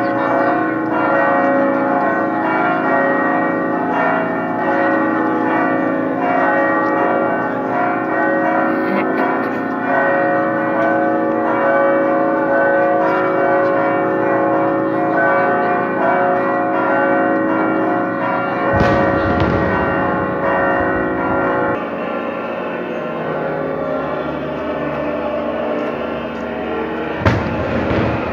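Church bells ringing a continuous festive peal, many overlapping ringing tones. The peal drops a little in level and fullness about three quarters of the way in, and there is a single sharp knock near the end.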